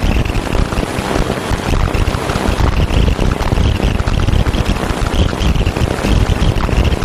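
Steady, loud noise soundtrack from a 'Garyaev matrix', offered as the audible energy of a painting: a dense low rumble under a hiss, with a higher hissing band that swells and fades irregularly, much like engine or propeller noise.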